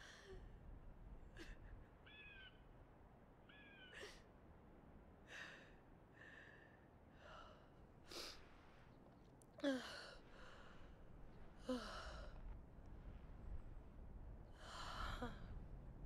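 A young woman crying quietly: a string of sighing, gasping breaths and small high whimpers. Two louder broken sobs fall in pitch, about ten and twelve seconds in.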